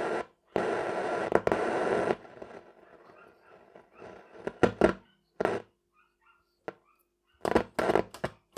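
Telefunken Opus 8 tube radio's loudspeaker putting out static noise that cuts off abruptly after about two seconds, then crackling and clicking in short bursts as the band switches are worked: the dirty switch contacts are making and breaking the signal.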